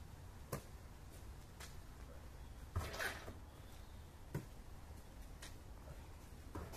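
A basketball being passed, caught and shot: a handful of dull thuds and slaps of the ball on hands and rim, about a second apart, the loudest about three seconds in with a brief ring.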